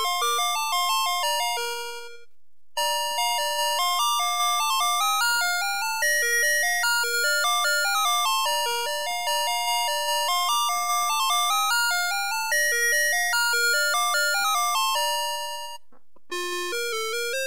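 Electronic toy fire truck's sound chip playing a tune of quick single notes in a simple beeping tone. The tune stops briefly about two seconds in, a new tune plays, and it pauses again near the end before another starts.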